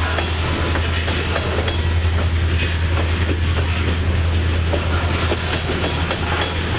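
Freight train of tank cars and covered hopper cars rolling steadily past, steel wheels clicking irregularly over the rail joints above a continuous low rumble.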